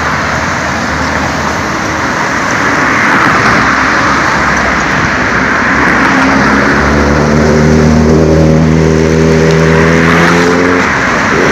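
Steady traffic noise, then a Kawasaki Ninja ZX-10R's inline-four engine through a loud exhaust comes in about six seconds in and holds a steady note as the bike rides past, stopping shortly before the end.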